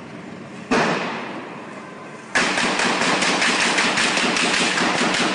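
Gunfire in a city street. A single loud shot about a second in echoes off the buildings, then from the middle on comes a long run of rapid shots fired in quick succession.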